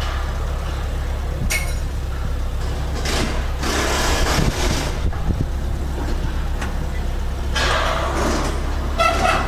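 JCB telehandler's diesel engine running steadily, with several bursts of hiss over it, the longest from about three to five seconds in.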